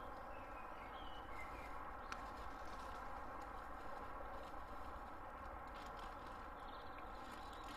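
Quiet woodland ambience: a steady low background hiss and hum, with faint bird chirps in the first couple of seconds and a faint click about two seconds in.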